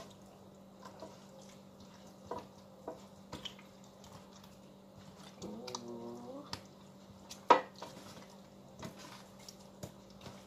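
Hands rubbing seasoning into a whole raw chicken in a stainless steel pan: scattered soft wet slaps and small taps against the pan, with one sharper knock about seven and a half seconds in.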